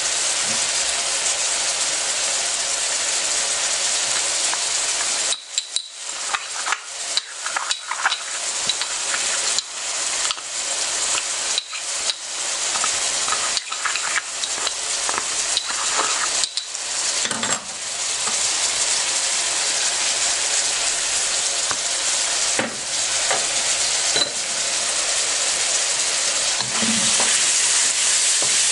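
Beef pieces frying in a steel wok: a steady, high sizzle. From about five to eighteen seconds in it is broken by a run of sharp crackles and clicks, and near the end a wooden spatula stirs the meat through the hot pan.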